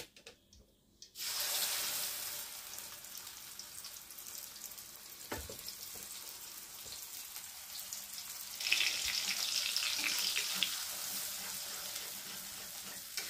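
Wet ground shallot, garlic and candlenut paste hitting hot oil in a wok and sizzling, starting suddenly about a second in. A single knock comes midway, and the sizzle grows louder near the end as the paste is stirred with a spatula.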